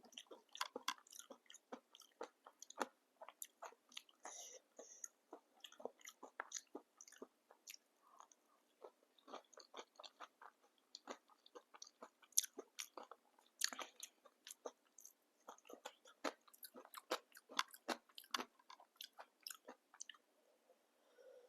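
Close-miked crunching and chewing of papdi chaat: crisp fried papdi wafers breaking between the teeth in many quick, irregular crackles.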